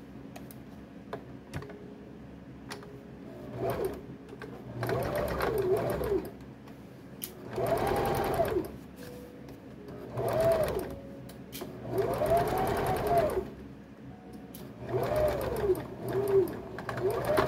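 Electric domestic sewing machine stitching a seam in about six short runs, the first starting about four seconds in. In each run the motor speeds up and slows back down, with the needle ticking rapidly.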